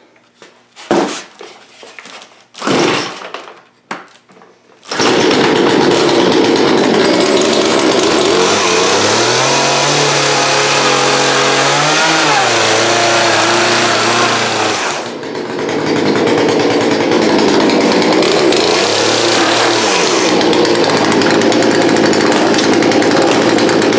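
Gas chainsaw starting up about five seconds in, then running at high revs as it cuts through a cardboard box. The pitch rises and falls as the throttle is worked, with a brief drop in revs about fifteen seconds in.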